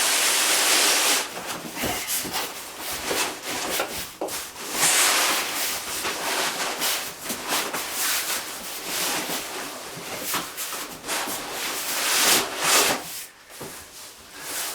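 Packaging rustling, scraping and crinkling as a parcel is unpacked by hand, with a loud sustained rustle over the first second and irregular scratchy handling noises after that.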